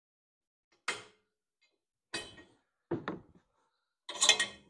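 A handful of separate metallic clinks and clanks from a wrench working on the metal air-cleaner base plate of a Kawasaki V-twin and from the plate being lifted off its studs. The loudest clatter comes near the end.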